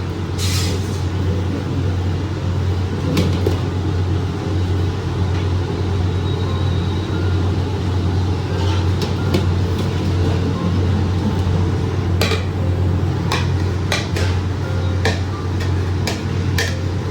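Metal serving spoon knocking and clinking against a pot and tray as cooked rice is loosened and turned out, sharp knocks scattered mostly through the second half. A steady low hum underneath.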